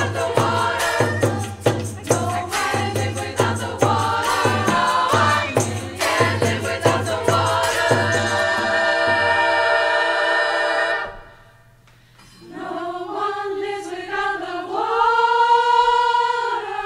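Women's choir singing over a steady percussion beat of about three strokes a second. About eight seconds in the beat stops and the choir holds a chord, breaking off a few seconds later. After a brief pause the voices come back in and swell to a long held chord near the end.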